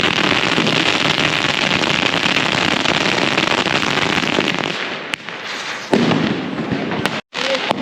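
Dense, rapid crackling of many firecrackers going off together. It eases off after about five seconds, and a single louder bang follows about six seconds in.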